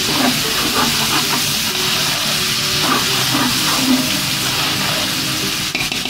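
Onion-tomato spice masala frying in oil in a pot, a steady sizzling hiss, while a spatula stirs it through. This is the bhuna stage, where the spices are fried until their raw taste is gone.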